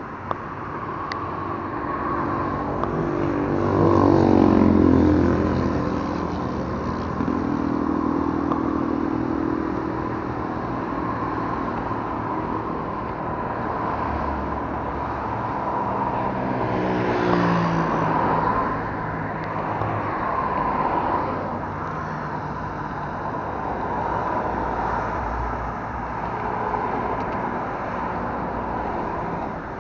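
Road traffic crossing a bridge close by: a steady drone of passing vehicles. Two loud vehicles go past, one about four seconds in and another around seventeen seconds, and the engine note of each falls as it passes.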